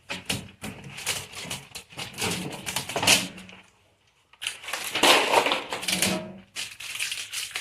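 Packaging being handled while a new fridge is unpacked: rough crinkling and crushing noises with many small clicks, in two loud stretches broken by a short pause about four seconds in.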